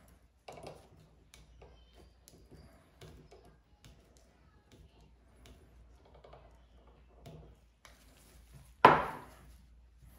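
Small metal bicycle-pedal parts and a hand tool being handled, with scattered soft clicks and taps. Just before the end comes one loud sharp knock of a hard object on the wooden tabletop.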